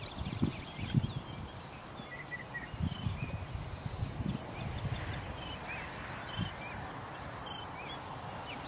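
Dull thuds of a horse's hooves on grass turf as it trots, with small birds chirping intermittently in the background.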